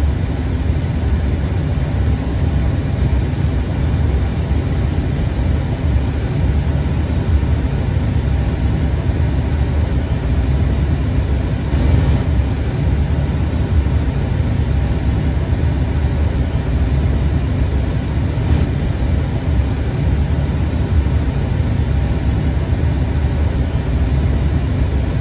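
Steady low rumbling noise on the flight deck of an Airbus A320 in flight during its descent.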